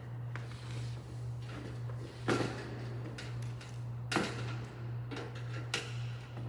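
Light-gauge steel studs and track being handled, giving three sharp metallic clanks spaced about two seconds apart and some lighter ticks, over a steady low hum.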